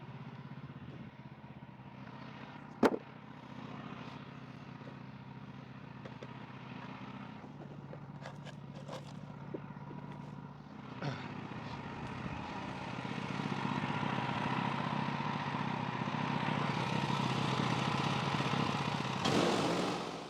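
Portable band sawmill's engine running steadily, with a sharp knock about three seconds in. The sound grows louder from about halfway through and stays up until it stops near the end.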